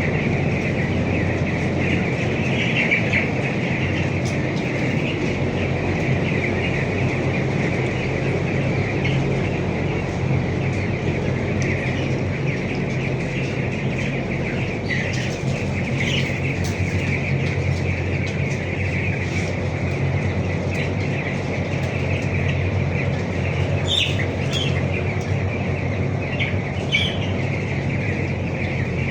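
Dense, continuous peeping of a large flock of 13-day-old broiler chicks, with a few louder single chirps near the end, over the steady low hum of a ventilation fan.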